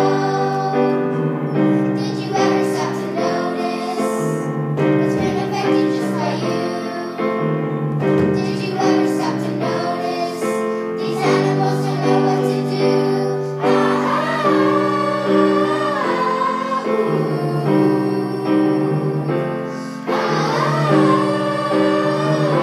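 A group of children singing a song together over instrumental musical accompaniment.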